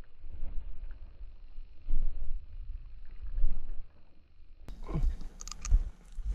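Footsteps of a person walking over dry, stony tilled ground, with irregular low rumbling from the camera being carried; sharper crunches and rustles come in over the last second and a half.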